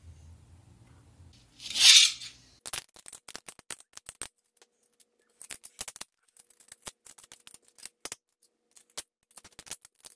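Support material being snapped and pried off a green 3D-printed plastic part with needle-nose pliers: many sharp, irregular clicks and cracks as pieces break away and drop onto the desk. Just before the clicking begins, a single loud rush of noise lasting about a second.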